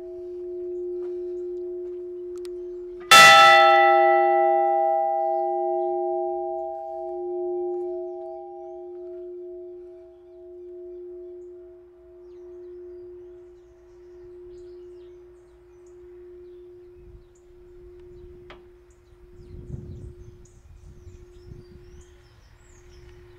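A bell, struck once about three seconds in, rings out and slowly dies away. Its low hum keeps pulsing slowly as it fades. Before the strike, the ringing of an earlier strike is still sounding.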